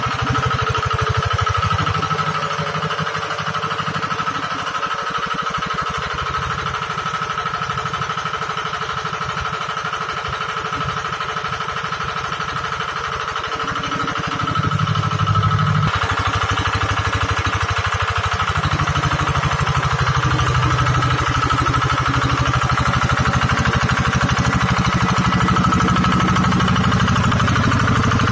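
Engine of a hydraulic water-well drilling rig running steadily with a rapid, even chugging, its sound getting a little louder and fuller about halfway through.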